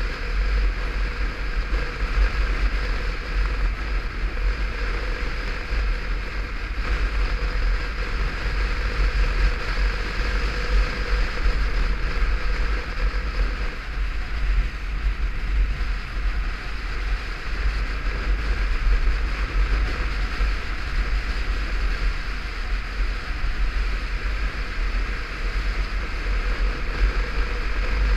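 Wind buffeting the microphone of a helmet-mounted camera on a moving motorcycle, with the steady drone of the bike and road underneath. The sound stays the same throughout, with no change in speed.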